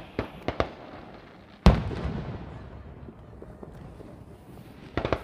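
Fireworks exploding: a few sharp cracks in the first second, then one big boom about a second and a half in that rolls away in a long echo, and a quick cluster of cracks near the end.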